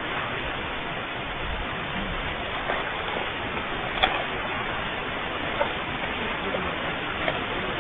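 Steady rushing noise with a few faint clicks, about four, five and a half and seven seconds in.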